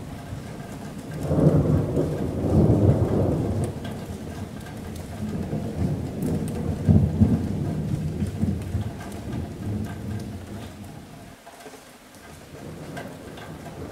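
Thunder rolling over steady rain on a metal roof: a deep rumble swells about a second in, rumbles on with a second peak around seven seconds, and dies away near the end, leaving the rain.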